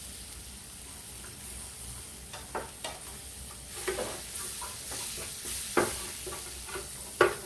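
Wooden spatula stirring and scraping a butter-and-flour roux in a nonstick frying pan while milk is worked in, with a soft steady sizzle from the pan. Several sharper knocks of the spatula against the pan, the loudest near the end.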